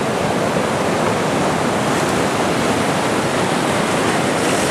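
Ocean waves surging and washing, a steady rush of water.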